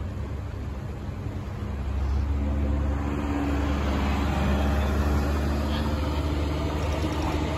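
Tokyu 8500 series electric train (set 8631F) approaching at speed, its traction motors growling: a steady low drone with a higher hum above it, getting louder as the train nears.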